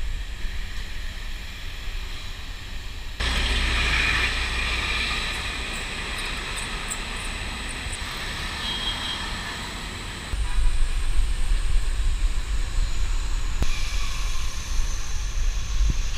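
City vehicle noise: a steady low rumble and hiss of passing traffic or a train, in several recordings cut together. The sound changes abruptly about three seconds in, about ten seconds in and near fourteen seconds.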